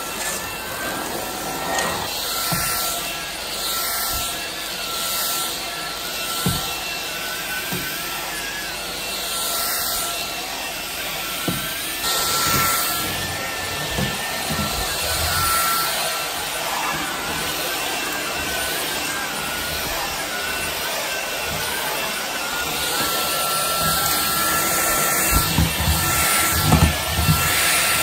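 Jimmy JV83 cordless stick vacuum with its 500 W digital motor running on full power: a steady motor whine over the rush of suction as the motorized brush head moves from carpet onto tile. A few low knocks come near the end.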